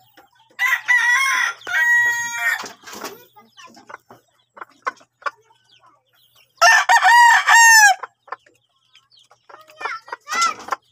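A rooster crows twice: once about half a second in, for about two seconds, and again a little past the middle, for just over a second. Short scattered clicks fall between the two crows.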